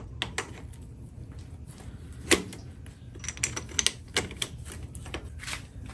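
Irregular light clicks and taps of small hard parts being handled as a new motorcycle clutch lever and its greased brass bushing are fitted, with one sharper tap about two seconds in and a quick run of clicks past the middle.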